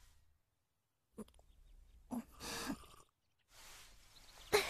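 A young woman sipping a hot drink from a cup, with soft breaths, then a short sigh near the end.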